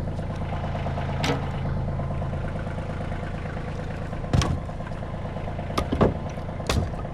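An engine idling steadily, with a handful of sharp knocks over it: one about a second in, then several between four and seven seconds.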